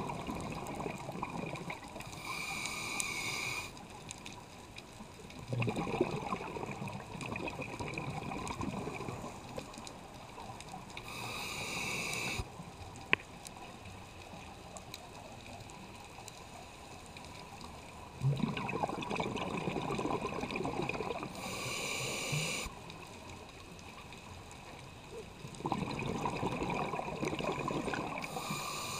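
Scuba diver breathing through a regulator, recorded underwater: a short hiss of air on each inhale, then a longer spell of bubbling as the exhaled air is released, repeating about every nine to ten seconds. A single sharp click sounds near the middle.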